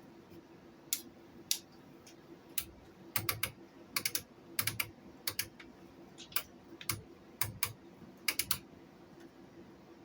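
Scattered sharp clicks and light knocks, several in quick pairs and clusters, from the controls of a 1965 Record-O-Fone answering machine being worked and the unit handled while trying to get it to run; it stays dead.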